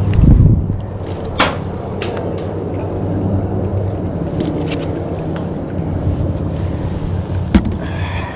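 Fishing gear being handled in a boat: a landing net and tackle knocking and clicking a few times over a steady low rumble, with a heavier thump at the start.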